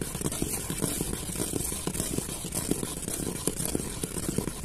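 Steel ladle stirring sugar syrup in a steel pot as gram flour is sprinkled in: a dense, irregular run of soft low knocks and swishes over a faint hiss.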